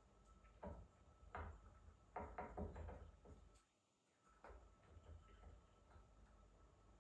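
Faint rustles and soft knocks of hands pressing compost around plants and handling terracotta plant pots.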